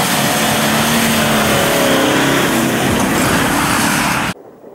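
Mitsubishi L200 pickup driving hard through mud and snow: its engine pulls under load with a shifting note over a loud rush of tyre and spray noise as it comes past close by. The sound cuts off abruptly about four seconds in.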